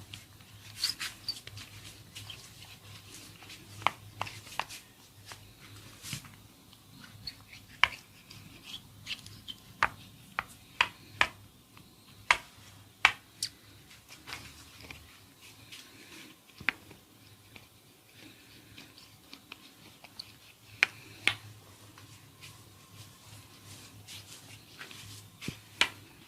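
A barber's hands at work on an oiled head during a massage: irregular sharp clicks and snaps, some in quick little clusters, over soft rubbing.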